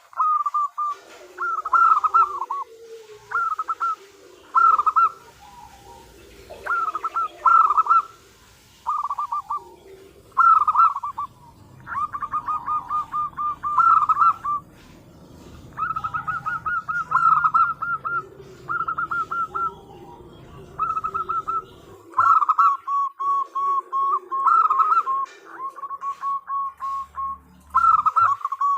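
Zebra dove (perkutut) cooing: short bright phrases repeated about every second or so, with softer lower notes between them. In the last few seconds the calls turn into quick runs of repeated staccato notes. The call is given as a female calling to a male.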